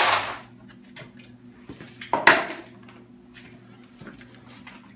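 Fired .223 brass cartridge cases poured from a plastic bin into the empty plastic drum of a cement mixer, a rush of metallic clatter that dies away. A second, louder pour follows about two seconds in.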